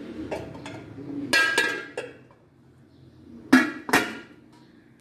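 Metal lid being handled and set onto a metal cooking pot: a ringing clink, then two louder ringing clanks about a second apart near the end as the lid goes on.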